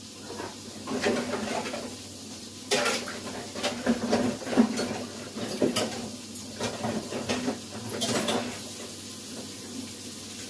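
Dishes and utensils clinking and knocking at a kitchen counter at irregular intervals while eggs are being prepared.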